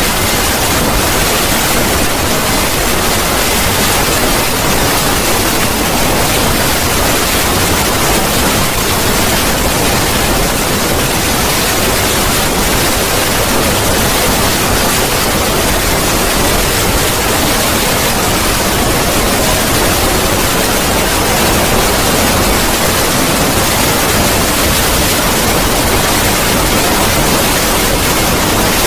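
Loud, steady hiss-like static noise spread evenly from low to high pitches, a harshly distorted 'void scream' sound effect. A few faint tones fade out in the first second.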